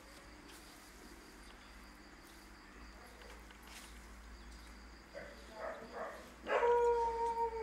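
Faint steady insect-like chirring, then a few short squeaks and, near the end, a loud, long, steady whine from an animal, held for over a second.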